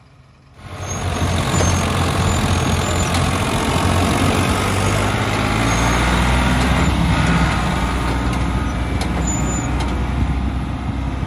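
Diesel tractor engines working hard under load, hauling a heavily loaded farm trailer. A loud, steady engine drone starts about half a second in.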